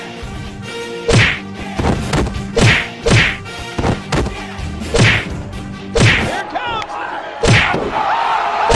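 A series of sharp whacks of blows landing in a beating, about seven hits spaced a second or so apart, with a low steady music tone underneath.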